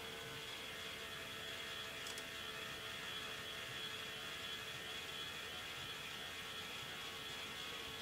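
K'nex ball lift's electric motor and plastic gears running with a steady whir, with a faint click about two seconds in.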